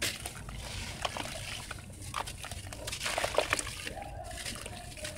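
A block of red gritty sand crumbling in a basin of water: gritty crunching and crackling as wet chunks break off and splash into the water, in irregular bursts, the loudest about three seconds in.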